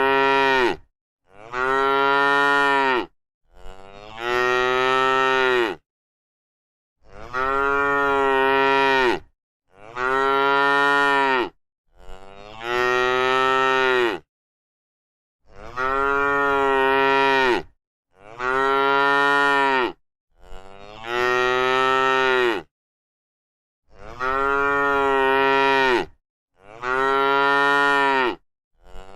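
Cow mooing over and over: about a dozen long moos of roughly two seconds each, separated by short silent gaps. The same three-call pattern repeats.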